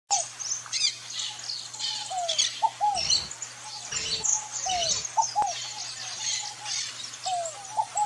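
A chorus of wild birds: many high chirps and twitters over a lower, short arching call note repeated again and again. A few soft low thumps sound near the middle.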